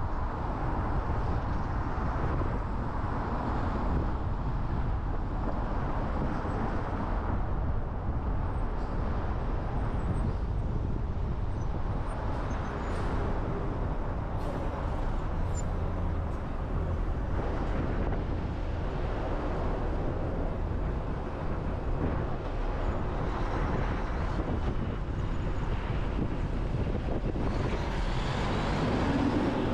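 A car driving in city traffic: a steady low road rumble with tyre noise, swelling a little near the end.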